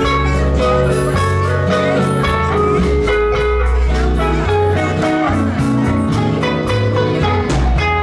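Archtop electric guitar, acoustic guitar and upright bass playing an instrumental passage of a slow country song, with picked guitar notes over bass notes and no singing.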